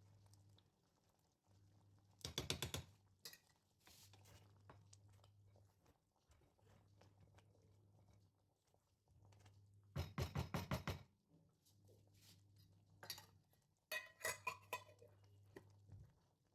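A metal utensil rattling rapidly against a cooking pot in three short bursts, over a faint low hum.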